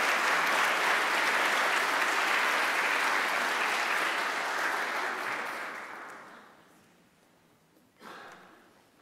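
Audience applauding, steady for about five seconds and then dying away over the next two.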